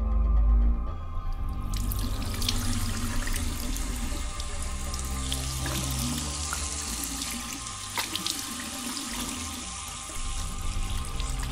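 Water running from a bathroom tap into a sink, starting about two seconds in and running steadily, with a few splashes.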